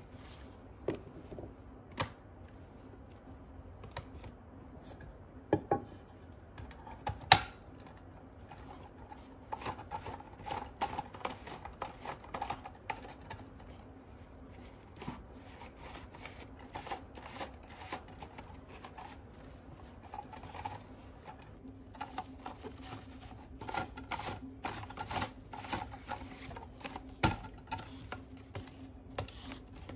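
Hard plastic stacking rings clicking and clacking as they are handled and slid onto the toy's plastic cone, with runs of quick small clicks and a few sharper knocks, over a faint steady hum.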